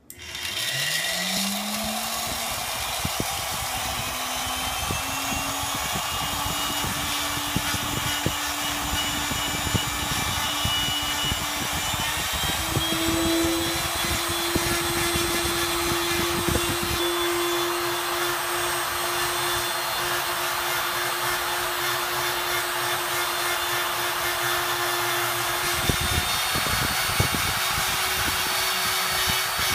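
PRO Scientific PRO250 laboratory homogenizer with a 10 x 115 mm generator probe switching on and spinning up, its whine rising quickly in the first second, then running steadily at speed in a flour-and-liquid sample. Its pitch steps up a little about halfway through.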